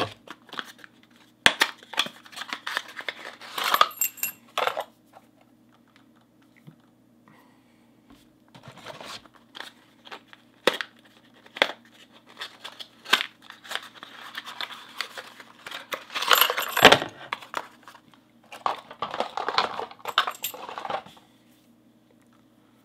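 Brass padlocks being unwrapped and handled: packaging crinkling and tearing in several bursts, with sharp metallic clicks and clinks as the locks and keys are handled.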